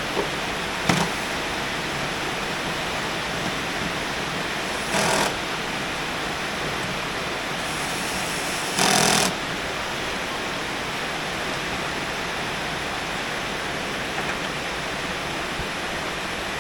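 Heavy rain falling steadily as an even hiss. A single knock comes about a second in, and two brief louder rushes of noise come around five and nine seconds in.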